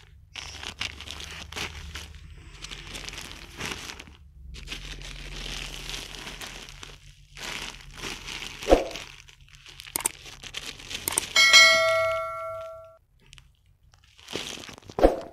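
Crinkling and rustling of the mosquito nets' plastic packaging being handled, with a couple of sharp knocks. About eleven seconds in, a single bell-like ding rings out and fades over about a second and a half.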